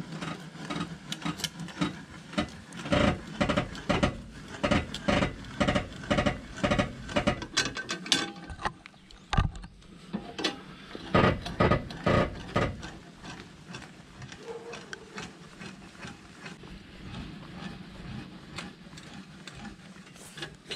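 A car being jacked up: rhythmic mechanical clacks, about two a second, stopping about eight seconds in, resuming for a few seconds, then giving way to fainter scattered knocks.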